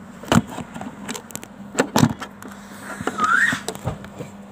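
Knocks and bumps of a phone being handled and moved about, with a short squeak that rises then falls about three seconds in, over a faint steady hum.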